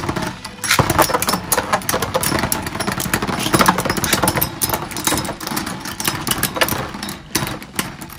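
Metal Beyblade spinning tops whirring and clashing in a plastic stadium, with a fast, irregular run of sharp clicks and scrapes as they grind against each other and the walls.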